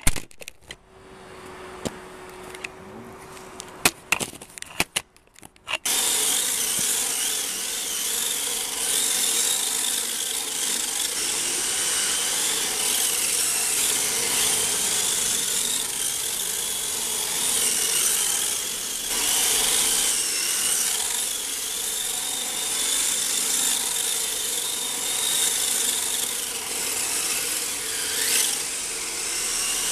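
A radio-controlled car's electric motor whines and its tyres slide on a concrete floor, the whine wavering up and down with the throttle. Before that the first few seconds are quieter, with a few sharp clicks, and the running sound starts about six seconds in.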